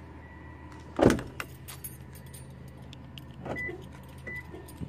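A car door shuts with one loud thump about a second in, followed by small clicks and jingles of keys. A low steady hum runs underneath, and two short high beeps sound near the end.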